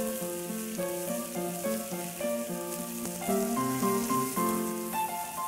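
Fresh lamb shoulder-loin slices sizzling on a hot iron griddle over charcoal, a steady hiss, under background music with a stepping melody.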